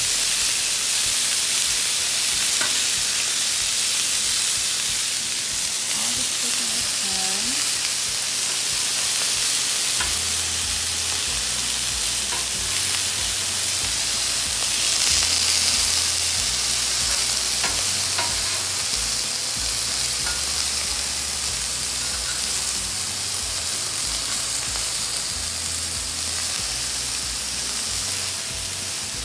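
Chicken pieces, corn and eggplant frying in grease on a Blackstone flat-top griddle, a steady sizzling hiss.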